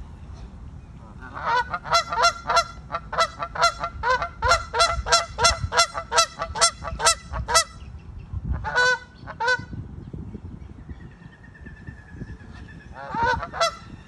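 Canada geese honking: a fast run of about three honks a second for several seconds, then two single honks and a short burst of honks near the end.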